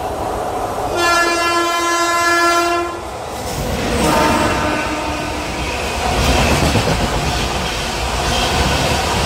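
Express train passing through a station at speed: its locomotive horn sounds a long blast about a second in, then a shorter, fainter second blast, and the loud rush and rumble of the train going by fills the rest.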